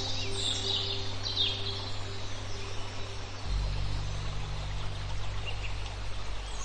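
Birds chirping, busiest in the first couple of seconds and then thinning out, over a low sustained ambient music drone that moves to a deeper note about three and a half seconds in.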